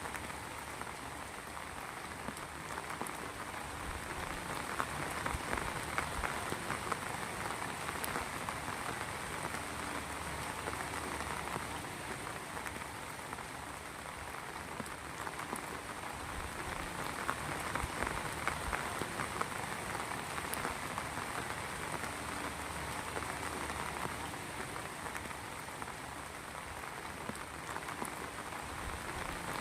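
Heavy rain falling steadily, with a dense spray of individual drop hits over an even hiss that swells and eases slightly.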